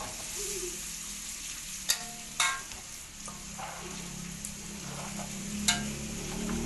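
Food frying in hot oil in a pan, a steady sizzle, with a few sharp knocks: two close together about two seconds in and one near the end.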